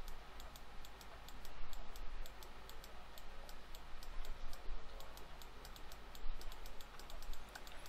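Light, irregular clicking from a computer keyboard and mouse, several clicks a second, during Photoshop editing.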